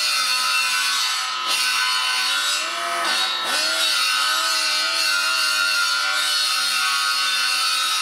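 Angle grinder running steadily and grinding metal with a high whine. About three seconds in, its pitch sags and recovers as it is pressed into the work.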